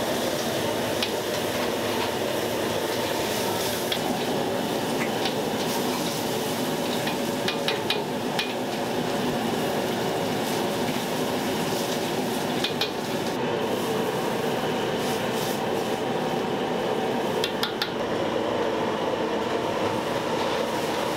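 Metal cooking utensils stirring and clinking against woks and pots in a Chinese-restaurant kitchen, with a few sharp knocks, over a steady rush of kitchen noise.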